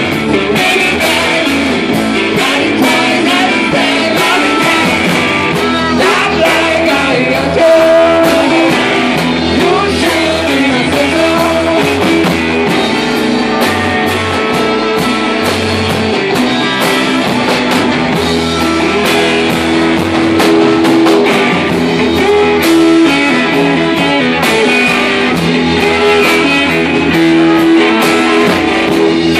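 Live rock band playing: electric guitar, drum kit and trombone, with a voice singing.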